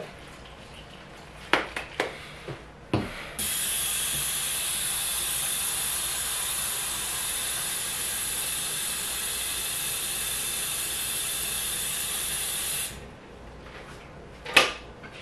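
Kitchen sink tap running for about nine seconds as a steady hiss, turned on and off abruptly. A few knocks come before it and one comes near the end.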